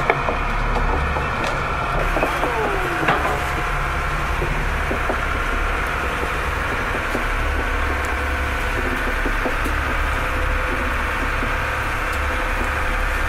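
Fishing boat's engine running steadily with a deep rumble. There is a sharp knock right at the start, and a few descending gull calls about two to three seconds in.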